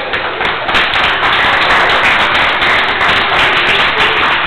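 Applause from a small audience: many hands clapping at once, swelling about a second in and holding loud.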